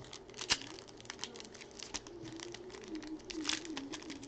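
Foil trading-card pack crinkling as it is torn open and handled, with the cards shuffled, heard as an irregular run of small crackles and clicks.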